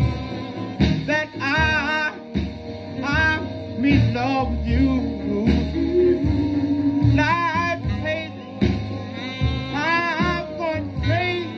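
A 1954 rhythm-and-blues vocal group record playing on a turntable at 78 rpm: voices singing over band accompaniment with a steady bass line.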